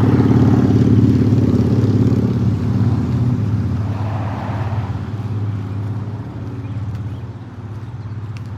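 A motor vehicle's engine running close by, loud at first and then fading away, with a brief rush of tyre noise near the middle.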